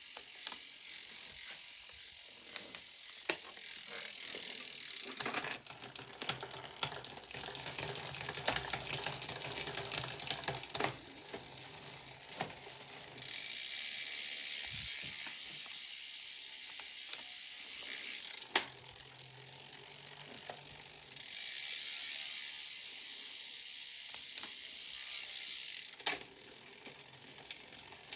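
Drivetrain of a Trek Emonda road bike with a 12-speed Shimano Ultegra R8100 groupset, the chain running over the cassette and chainrings while it is shifted through the gears. Sharp shift clicks and ratcheting come throughout, thickest in the first half, with stretches of steadier chain whir in between.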